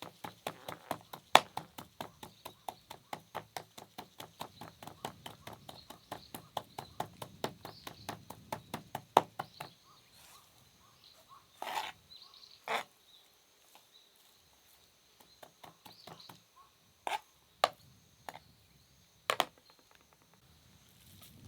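Knife chopping on a cutting board in a quick, even rhythm of about four to five strokes a second, stopping about nine seconds in and followed by a few scattered single knocks. Insects, crickets among them, sing faintly in the background.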